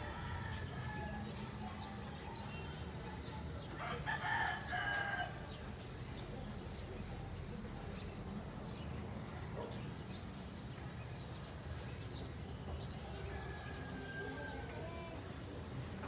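A rooster crows once, about four seconds in, for roughly a second. Faint bird chirps come and go over steady low background noise.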